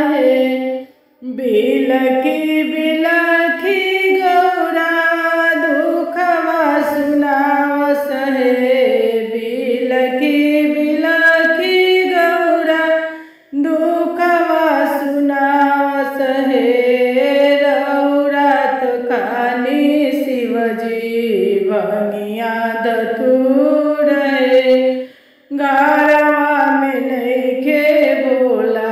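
A woman singing a Bhojpuri Shiv charcha bhajan, a devotional folk song, solo and with no accompaniment heard. Her pitch slides through each line, and she breaks off three times for short pauses: about a second in, near the middle, and shortly before the end.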